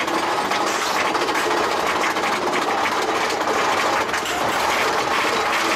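Big Thunder Mountain Railroad's mine-train roller coaster running on its track: a steady, fast clatter of the train's wheels and running gear.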